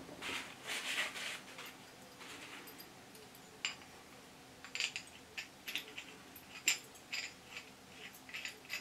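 Faint hand-handling of a lathe's metal tailstock shaft as it is oiled: soft rubbing for the first second or so, then a scatter of light metallic clicks and clinks through the second half.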